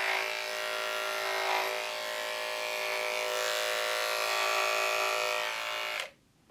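Electric pet grooming clippers running steadily while shaving the fur on the top of a small dog's front foot. The motor stops suddenly near the end.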